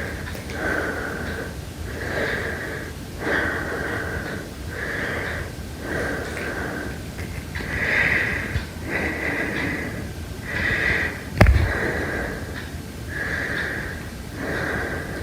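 Heavy breathing: slow, regular in-and-out breaths, about six in all, each with a faint whistle in the hiss. A single sharp knock cuts in a little past the middle.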